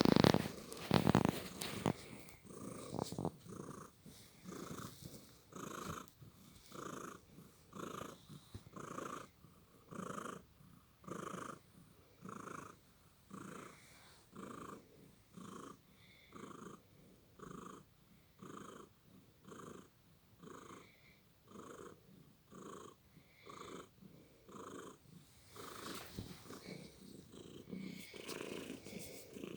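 A napping cat's rhythmic breathing noise, soft pulses about three every two seconds, which the owner takes for snoring. Louder rustling comes before it in the first couple of seconds.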